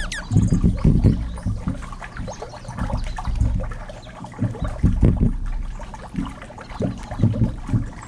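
Wind buffeting a GoPro's microphone: irregular low rumbling that surges and fades, strongest in the first second and around five and seven seconds in.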